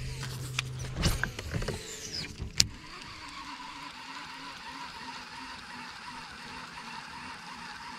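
A low steady hum from the boat's electric trolling motor, with a few clicks, stops about a second in. From about three seconds in, a baitcasting reel winds steadily, whirring evenly as a buzz bait is retrieved.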